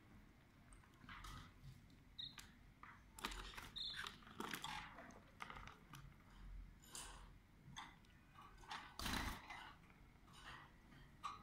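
Canaries moving about a wire cage: faint scattered rustles and taps, with a louder rustle about nine seconds in.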